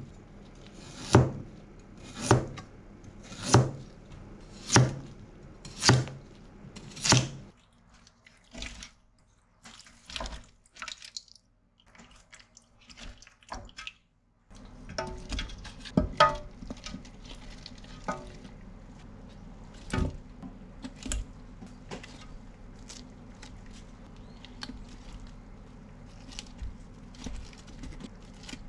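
Kitchen knife slicing a daikon radish into thick rounds on a cutting board: six even strokes about a second apart, each ending in a knock on the board. Later, scattered soft knocks as pieces go into a stockpot, over a low steady hum.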